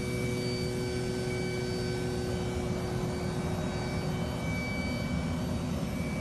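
Cabin noise of a propeller airplane in flight: a steady engine drone and airflow rush with a few constant hum tones.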